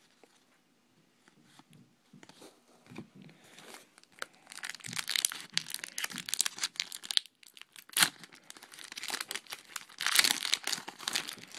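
Plastic wrapper of a trading-card pack crinkling and tearing open, in two spells of crackling from about four seconds in, with a single sharp click between them.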